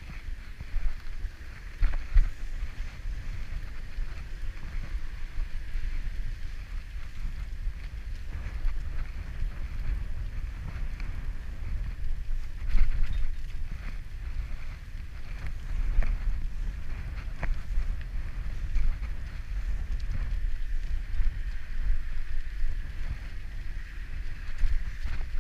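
Wind buffeting the microphone as a bicycle is ridden along a wet paved path, over a steady rolling noise from the tyres. Scattered sharp knocks and rattles come from bumps in the path.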